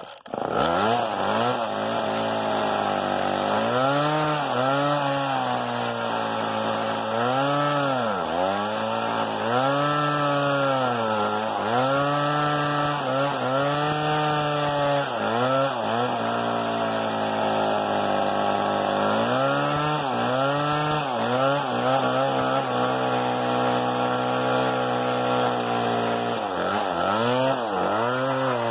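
Homelite XL two-stroke chainsaw running while cutting into a log. The engine pitch dips and recovers again and again as the chain bites into the wood, with a steadier stretch at high revs around the middle.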